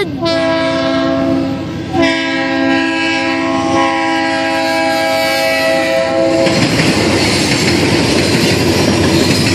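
Freight train locomotive's air horn sounding a chord of several notes: a short blast, then a long one of about four and a half seconds. After that the locomotive passes close by, with the steady noise of its engine and wheels on the rails.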